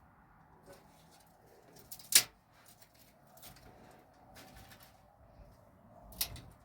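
Two sharp knocks, one about two seconds in and one near the end, the first the loudest, among several fainter clicks.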